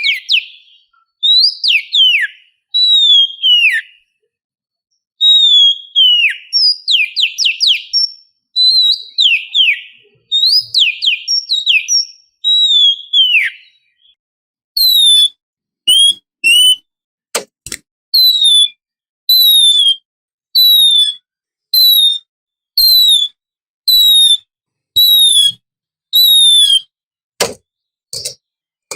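Oriental magpie-robin (kacer) singing: loud, varied whistled phrases that glide downward, then from about halfway a run of repeated short descending whistles, a little more than one a second. Two sharp clicks cut in during the repeated run.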